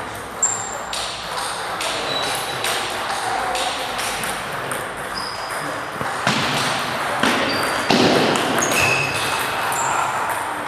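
Table tennis balls being struck by bats and bouncing on tables, from more than one table at once: an irregular run of short, sharp clicks and pings.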